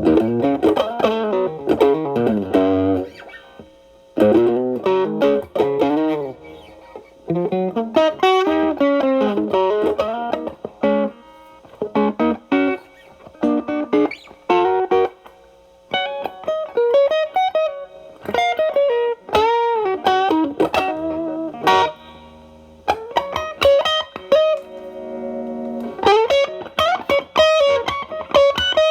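Telecaster with single-coil alnico pickups through a stacked MXR Distortion+ and Boss SD-1 into a Marshall Valvestate's clean channel, its drive cleaned up to a light overdrive: improvised blues lead phrases with string bends, broken by short pauses.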